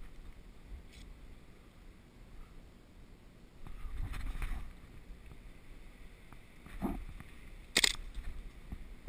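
Rustling and handling of clothing and gear on a head-mounted camera as an airsoft player shifts behind a log pile, then a thump and one sharp crack near the end.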